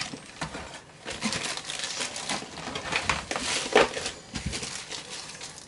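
Packaging being handled: plastic and cardboard crinkling and rustling, with a few small knocks, as items are put away and taken out of the box.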